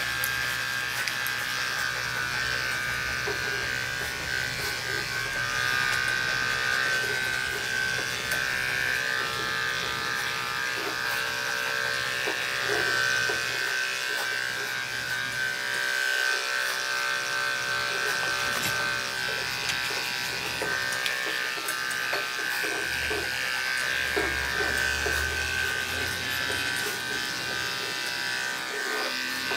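Andis Endurance detachable-blade pet clipper running with a steady buzz as it cuts the hair on a dog's head and face.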